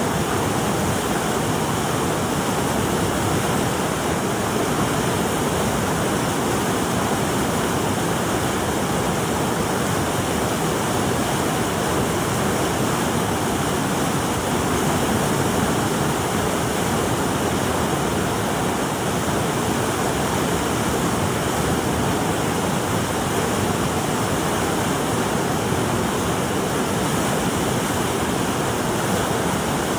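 Steady rushing water, an even hiss that neither surges nor pauses.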